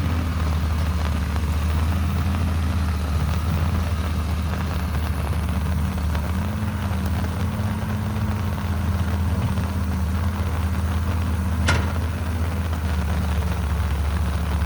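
Diesel engine of a Caterpillar 312B hydraulic excavator running steadily at a low, even speed, with a single sharp click near the end.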